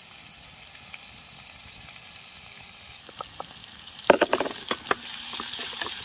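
Camping gas stove burner hissing steadily after being relit, with a cluster of clicks and knocks about four seconds in; the hiss grows louder from about five seconds in.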